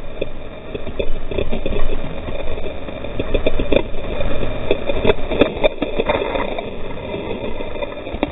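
Whitewater rapid rushing around a kayak as it drops through the falls, with water repeatedly splashing against the boat and the helmet camera. The sharp splashes come steadily, thickest around the middle.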